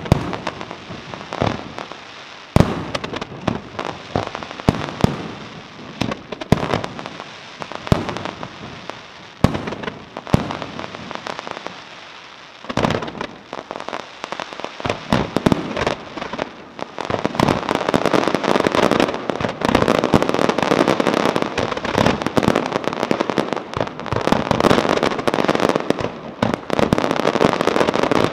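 Aerial fireworks display: shells bursting with sharp bangs at irregular intervals over a haze of crackling stars. About two-thirds of the way through it builds into a louder, dense run of crackling and bangs.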